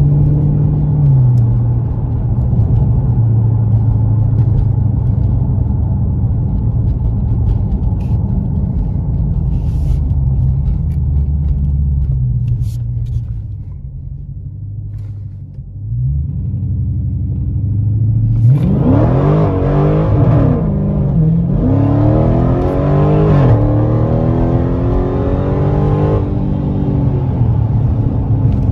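Dodge Challenger Scat Pack's 392 Hemi V8 running at a steady drone, easing off about halfway through. It then accelerates hard, its pitch climbing and dropping back three times as it shifts up through the gears.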